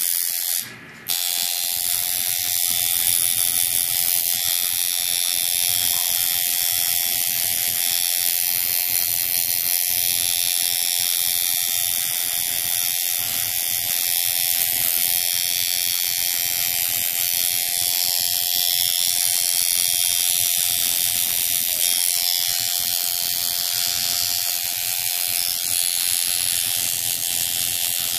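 Coil tattoo machine buzzing steadily as it drives the needle into the skin, cutting out briefly about a second in.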